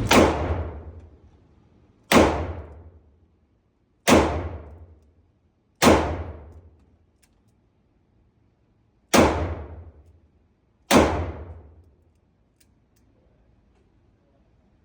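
Six shots from a Rock Island Armory M206 .38 Special revolver, fired one at a time about two seconds apart, with a longer pause after the fourth; each shot is a sharp crack that fades over about a second. This is the revolver's full cylinder of six.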